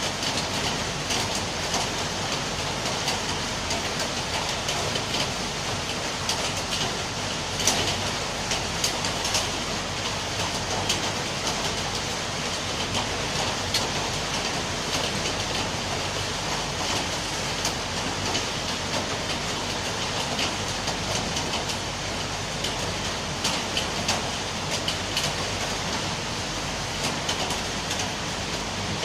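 Rain falling steadily, an even hiss with scattered sharper drop hits, one louder about eight seconds in.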